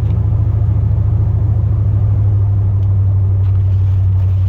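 Steady low drone of a Chevrolet Silverado pickup heard from inside the cab while driving, a deep engine-and-road hum that settles a little about two seconds in.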